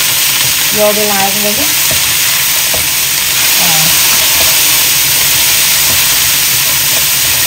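Green vegetable stems stir-frying in hot oil in a nonstick wok: a steady sizzle, with a spatula stirring and tossing them around the pan.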